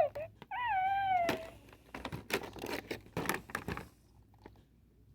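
Baby Yoda (Grogu) sound effect from a toy Mandalorian walkie-talkie's speaker: a high cooing squeal about a second long that wavers and then falls in pitch. Then about two seconds of crackling clicks that stop about four seconds in.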